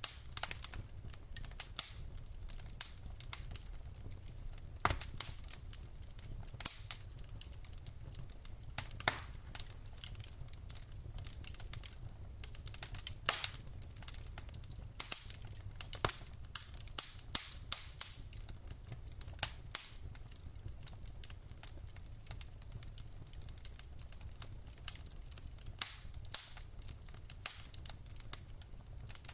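Wood fire in a fireplace crackling: irregular sharp pops and snaps of burning logs, several a second at times, over a steady low rumble of the flames.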